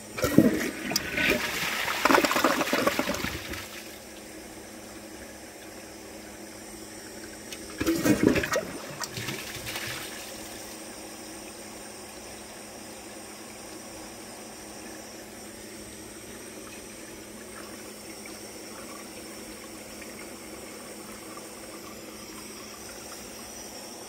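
Kohler Embrook toilet flushing: a loud rush of water lasting about four seconds, then a second, shorter rush of water about eight seconds in, which fades to a steady low hiss.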